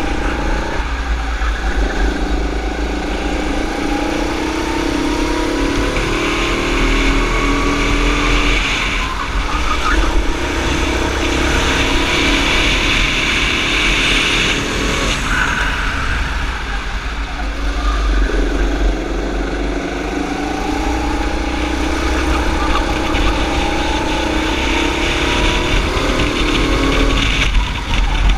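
Sodi kart's engine heard onboard, repeatedly revving up along the straights and dropping off when lifting for corners (about three times), with a steady low rumble of wind buffeting the microphone.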